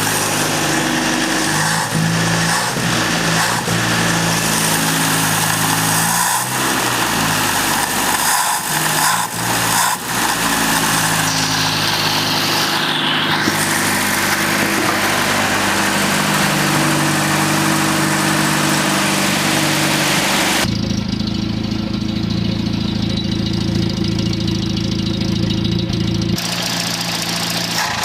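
Land Rover Series III 109 engine running, its speed rising and falling with a few brief stumbles. This is an engine that will only start with petrol poured into the carburettor, which the owner suspects is a fuel-pump problem. For about five seconds near the end the sound turns dull and boomy.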